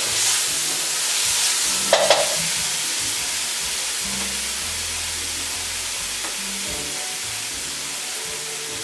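Curry spices, garlic and lemon juice sizzling in hot oil in a pot, a steady hiss that eases slowly as the burner is turned down to medium. A short utensil sound about two seconds in.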